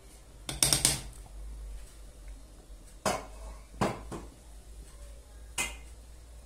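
Stainless steel cookware clinking and knocking: a spatula scraping and tapping the rim of a pot as purée is emptied into a saucepan, a quick cluster of knocks just under a second in, then three single knocks spread over the next few seconds.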